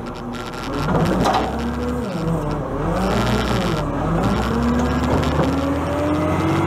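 Side-loader garbage truck's engine and hydraulics working the automated lifting arm as it tips a wheelie bin and sets it back down. The pitch wavers up and down and then rises steadily near the end, over a low steady rumble, with a brief knock about a second in.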